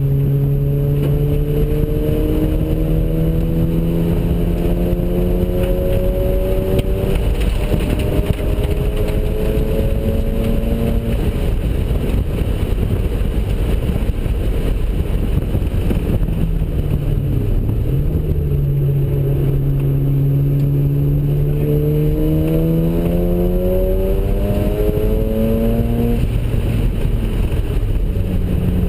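Mazda RX-7's twin-turbo rotary engine, stage 3 ported and running on low boost (10 psi), pulling hard with its pitch climbing for about ten seconds. After a stretch of steady engine and road noise the pitch dips briefly, then climbs again through a second long pull and falls off near the end.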